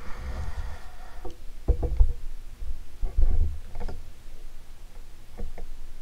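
Hunter 1896 Art Nouveau ceiling fan running with a faint steady hum, under irregular low thumps and a few clicks from the camera being handled and repositioned.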